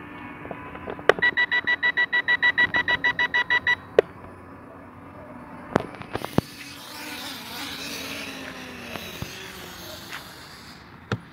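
Rapid electronic warning beeps, about six a second for nearly three seconds, while the KF102 quadcopter comes down to land, over a faint low hum. A few sharp clicks follow, then a rushing hiss.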